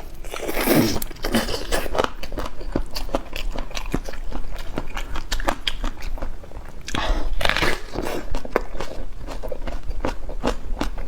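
Close-miked eating: biting and chewing food, with many sharp wet mouth clicks and two louder bites, about half a second in and about seven seconds in.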